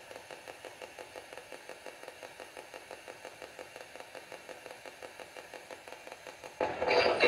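Spirit box (ghost box) scanning through radio stations: an even, choppy pulsing of static about five times a second. Near the end a much louder burst of sound breaks in.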